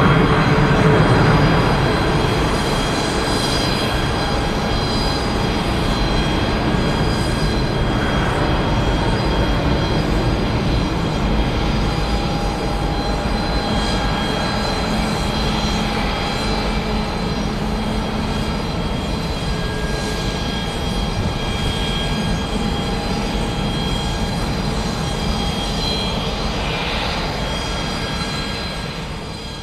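Antonov An-225 Mriya's six turbofan engines at climb power as the aircraft climbs away. The jet noise is a steady rumble with high whining tones, loudest about a second in, then slowly dropping and fading near the end.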